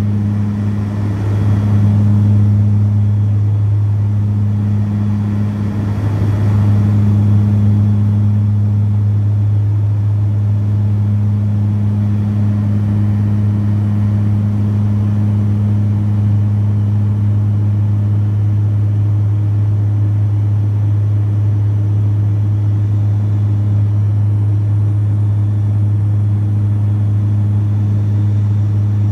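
BAe Jetstream 32's Garrett TPE331 turboprop engines and propellers in flight, heard from inside the cabin: a steady low drone with a higher note that swells and fades. The sound grows briefly louder about two seconds in and again about seven seconds in.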